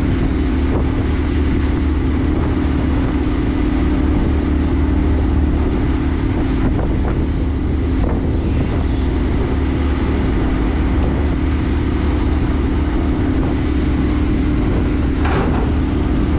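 Steady low engine drone with a held hum from the ro-ro ferry MV Earl Thorfinn running at the berth during unloading. About fifteen seconds in, a brief louder rush of noise comes as a van rolls forward toward the ramp.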